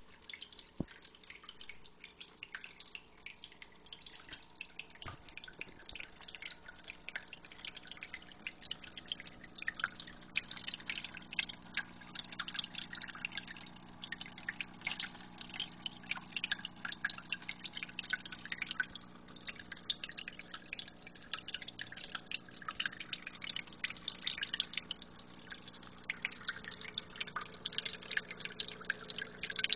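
Water dripping and trickling from a terrarium waterfall into its pool, a rapid irregular patter of drops that grows busier after about ten seconds, over a low steady hum.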